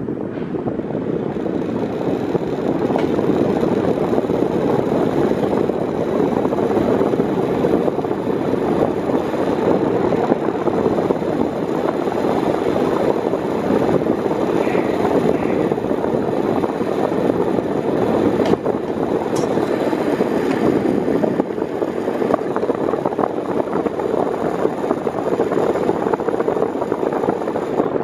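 Arno Silence Force 40 cm electric fan running at its lowest speed: a steady rush of moving air, building over the first few seconds as the blades spin up, then holding level.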